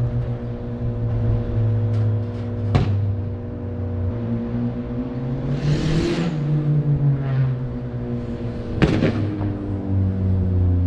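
Turbocharged KA24DE four-cylinder engine of a Nissan 240SX S13 running under way, its revs rising and then falling around the middle, with two sharp cracks, one early and one near the end. The engine is still misfiring a little, which the owner puts down to fouled spark plugs from running rich.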